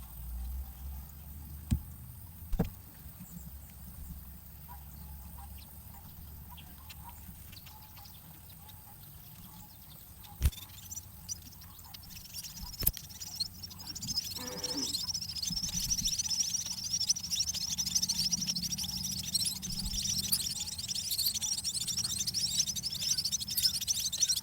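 Munia nestlings begging: a dense, rapid, high-pitched chirping that starts about halfway through and keeps up, the sound of chicks being fed by a parent. Before it, only a few sharp knocks break a quiet background.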